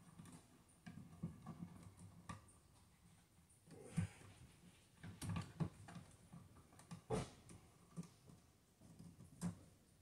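Faint, scattered clicks, taps and scrapes of a hand tool working on a wall receptacle and its plastic electrical box, with sharper knocks about four and about seven seconds in.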